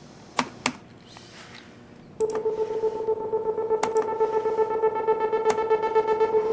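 Two sharp clicks, then about two seconds in a steady electronic tone with a fast flutter sets in and holds, with two more sharp clicks over it.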